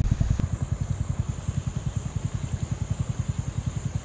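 Farm vehicle engine idling, an even low throb of about a dozen pulses a second.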